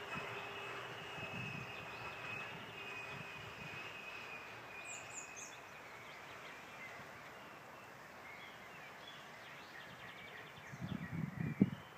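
A coal train moving away down the line, its sound fading, with a thin steady high ring that drops slightly in pitch. Near the end come a few short low thumps.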